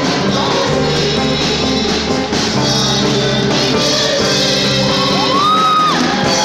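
Live band playing loud, steady upbeat music: drum kit with electric guitars. A single note swoops up and back down about five seconds in.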